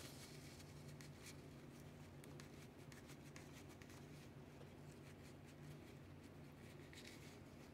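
Faint rubbing and rustling of a paper towel wiping a small chrome-plated guitar tuner housing, in scattered short scratches over a low steady hum.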